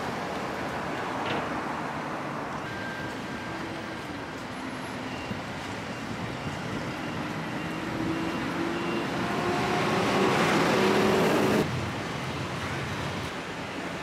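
Road traffic running steadily, with one vehicle engine rising in pitch as it speeds up. It is loudest just before it cuts off suddenly about three quarters of the way through.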